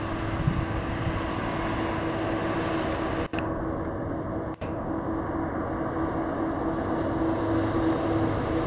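Two Tasrail TR-class diesel locomotives hauling a loaded log train as they approach, a steady engine drone with a held tone above it, growing slightly louder toward the end.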